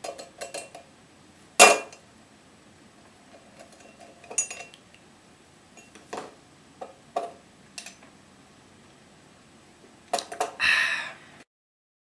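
Irregular clinks and knocks of a small bottle against a ceramic jug as it is set inside. The loudest, sharpest clink comes about a second and a half in, and a short scraping rattle comes near the end before the sound cuts off suddenly.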